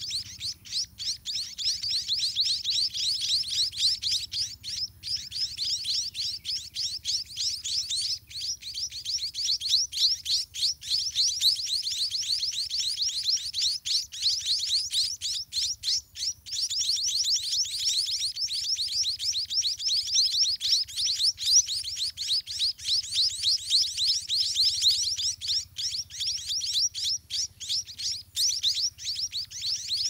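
White-rumped munia nestlings begging in the nest: a dense, unbroken stream of high, quick chirps, each sliding downward, many a second.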